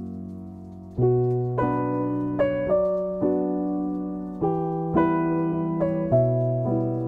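Slow, gentle piano music: a held chord fades away, then from about a second in, single notes and chords are struck every half second to a second and a half, each ringing on and fading.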